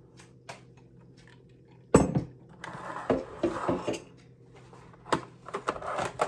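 Dishes and metal cutlery clinking: a sharp knock about two seconds in, then rattling and a few more clinks near the end as a glass jar, a metal spoon and a mug are handled.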